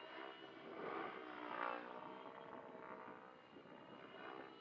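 Radio-controlled 3D aerobatic helicopter in flight, its rotor and motor whine rising and falling in pitch as it manoeuvres, loudest about a second and a half in.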